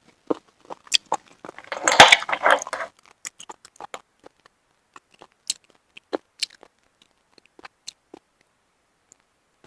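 Close-up sounds of a person eating shellfish: scattered wet mouth clicks and small snaps of chewing, with a louder, denser stretch of noisy eating about two seconds in.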